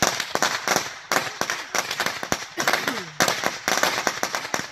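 An 8,000-round string of Black Cat firecrackers going off in a rapid, continuous run of sharp bangs, with brief lulls about a second in and again just after three seconds.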